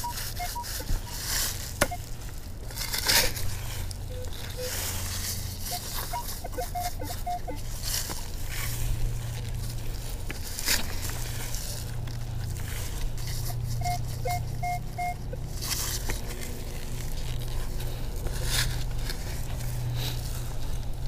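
Minelab Equinox 600 metal detector giving short beeps in runs of two to four, at a few different pitches, as the coil is swept. Intermittent crunching scrapes and a low steady rumble sound underneath.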